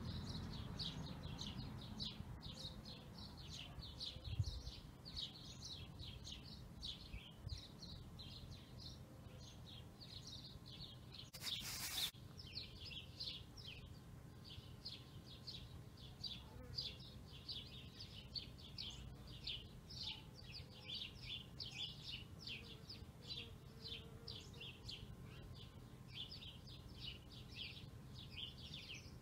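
Faint, rapid high-pitched chirping in the background, several short chirps a second. There is a soft low bump about four seconds in and a brief hiss near the middle.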